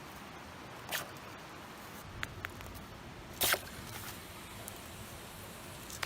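Hot stones being dropped into and lifted out of water to bring it to the boil: a few brief splashy hisses and a couple of small clicks. The loudest hiss comes about three and a half seconds in, over a steady background hiss.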